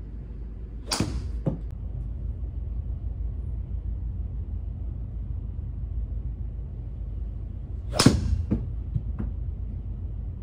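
Two golf driver shots: each a sharp crack of the driver's clubhead striking a teed golf ball, followed about half a second later by a smaller knock. A steady low hum runs underneath.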